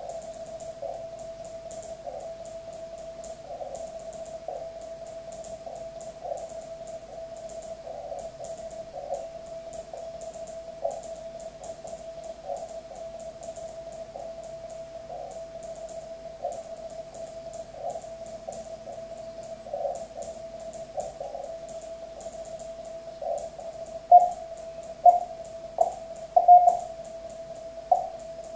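Morse code (CW) on the 40 m amateur band heard through a transceiver's narrow CW filter: a single tone of about 650 Hz keyed on and off over a steady hiss of band noise that the filter pitches the same. Several sharp, loud clicks come in the last few seconds.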